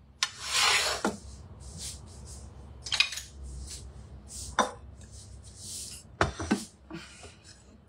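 Kitchen dishes being handled on a wooden cutting board: a brief swish near the start, then several separate sharp clinks and knocks as a plate with utensils is moved aside and a ceramic bowl is set down.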